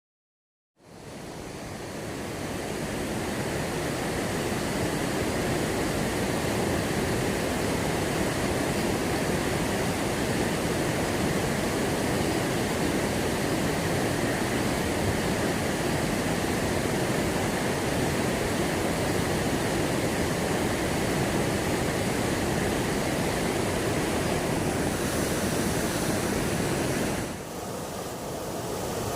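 Steady rush of flowing water, fading in about a second in and then holding even, with a brief drop in level near the end.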